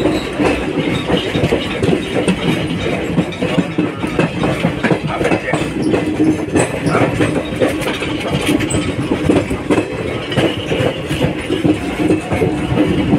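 Indian Railways passenger train (the Unchahar Express) heard from on board while moving: wheels running over the rails with a steady rumble and hum, broken by many short clicks and knocks.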